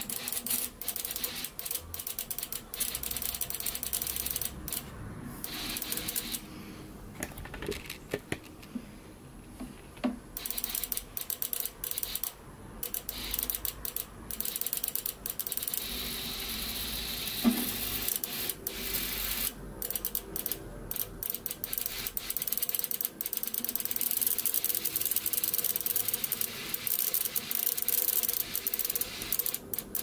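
BMW M54 fuel injector being pulsed on the bench while cleaning fluid is pushed through it. It clicks rapidly, with a few short pauses, and the spray hisses into a plastic cup.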